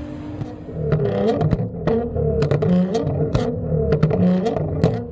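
Nissan GT-R's twin-turbo V6 running at low speed, its note rising and falling, with many sharp clicks and rattles from about a second in.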